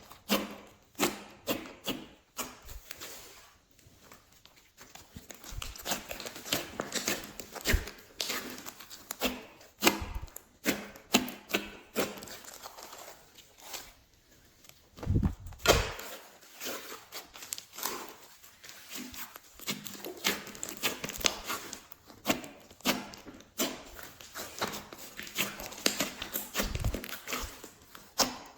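Glossy slime being squished and folded by hand: an irregular run of sticky clicks and pops, with a couple of short quieter pauses.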